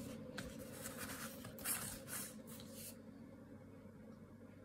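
Faint rustling and sliding of cardboard LP record sleeves being handled, with a few short bursts in the first two and a half seconds, then quieter, over a faint steady hum.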